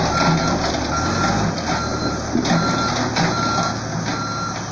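Backhoe loader's reversing alarm beeping at an even pace, about one beep every 0.8 seconds, over its engine running.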